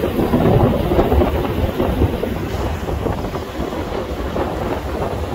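Wind buffeting the phone's microphone over the rumble of a moving vehicle on the road, a steady low noise that eases slightly about halfway through.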